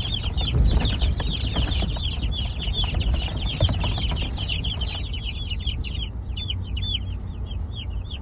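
A box of baby meat-bird chicks peeping: many rapid high cheeps overlapping, thinning to fewer, separate peeps over the last few seconds. A steady low rumble runs underneath.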